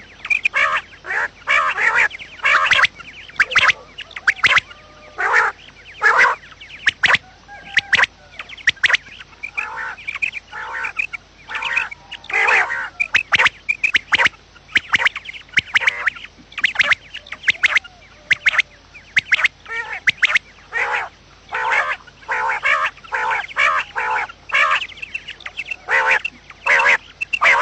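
Quail calling: short, sharp calls repeated in quick succession, several at a time.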